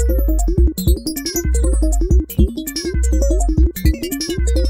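Electronic groovebox music: a synthesizer loop repeating about every second and a half, with deep bass pulses, short notes stepping upward, high tones sliding down, and crisp clicking percussion.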